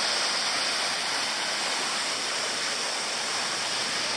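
Small tiered cascade of water spilling down stepped rock ledges into a pool, a steady, even rush of falling water.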